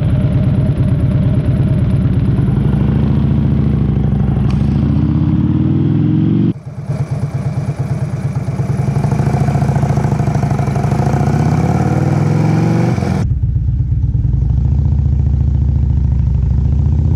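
Cruiser motorcycle engine running and revving up as the throttle is rolled on and the clutch is slowly let out to pull away from a stop, twice. A steadier engine note follows. The throttle is opened before the clutch so the engine has power built up and does not stall on takeoff.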